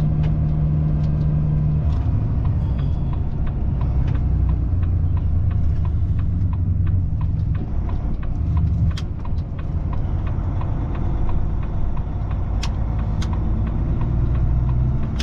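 Volvo FH truck's diesel engine running, heard from inside the cab as a steady low drone whose pitch shifts a few times. A light, regular ticking runs over it, and a few sharp clicks sound near the end.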